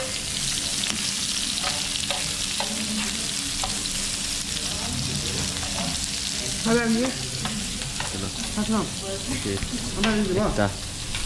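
Sliced meat sizzling steadily on a hot grill pan over a portable gas stove as it is stirred and turned with metal tongs, with a few light clicks of the tongs against the pan.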